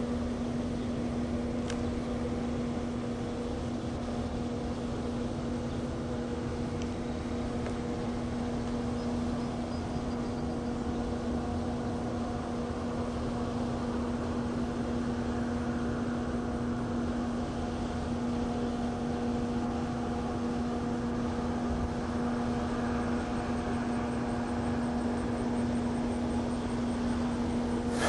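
A steady mechanical hum at one unchanging pitch over a constant rushing noise.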